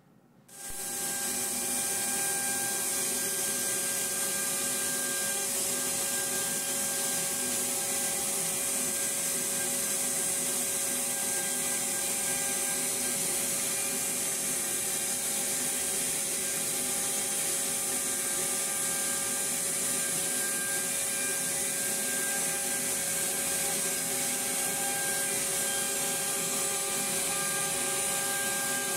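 CNC router spindle running and its bit carving a face relief into a bamboo chopping board. It is a steady whine over a hiss of cutting, and it starts about half a second in.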